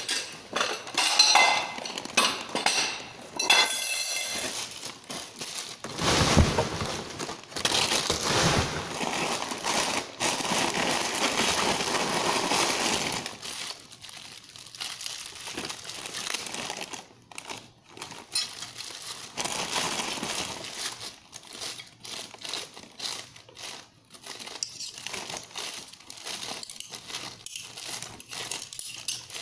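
Plastic packaging crinkling and rustling as cutlery is unwrapped by hand. The crinkling is louder and nearly continuous in the first half, then comes in short, separate bursts.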